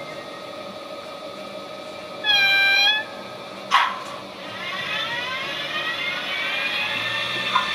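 Sound decoder in a PIKO model of the BR 111 electric locomotive, playing through its small speaker over a steady electrical hum. About two seconds in comes a short, loud horn blast, then a sharp click. After that the traction-motor whine rises steadily in pitch as the locomotive pulls away.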